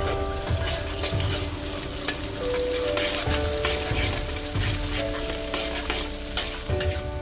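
Background music of held melodic notes changing pitch every second or so, over a steady crackling hiss with many small clicks.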